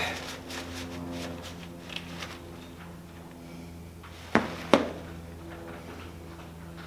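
Paper towel rustling against eyeglass lenses as they are wiped, over a steady low machine hum. Two sharp clicks come about a third of a second apart, about four and a half seconds in.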